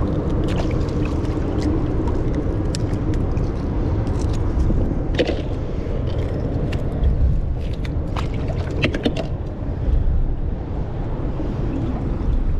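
Mussel shells clicking and cracking in scattered sharp snaps as mussels are pulled by hand off a barnacle-crusted pylon. A steady low rumble runs underneath.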